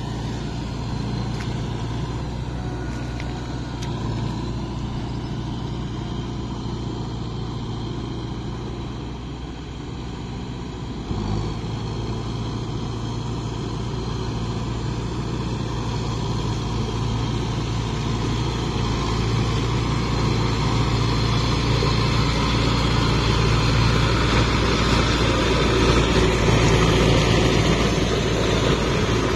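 Kubota MU5502 tractor's four-cylinder diesel engine running steadily as it pulls a rotary tiller through flooded paddy mud, growing louder as it comes close about three-quarters of the way through.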